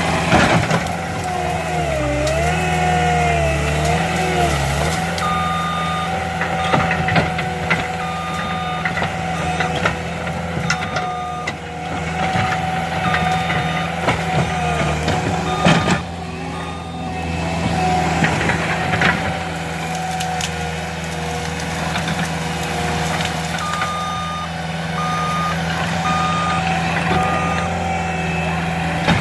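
Skid steer's diesel engine running steadily, dipping in pitch under load a few seconds in, while its reversing alarm beeps in runs of evenly spaced beeps about one a second. A few sharp knocks stand out over the engine.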